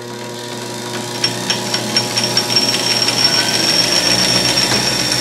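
A DC-motor-driven South Bend lathe speeding up: the spindle and gear train run faster and louder, with a rhythmic ticking that quickens and a high whine that comes in about a second in.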